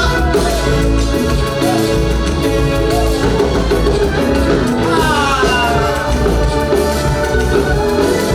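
Upbeat praise-and-worship music from a band with bass and percussion, with singing.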